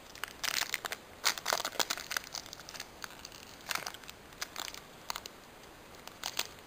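Foil wrapper of a Pokémon trading card booster pack crinkling as it is handled, in short irregular rustles.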